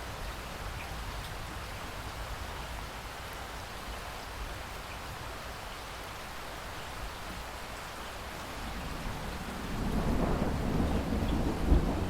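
Steady rain falling, with a roll of thunder building in as a low rumble about nine seconds in and growing louder, with a sharp crack near the end.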